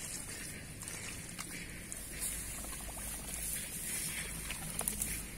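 Bare hands squelching and scooping through wet paddy mud, with small wet clicks and muddy water trickling.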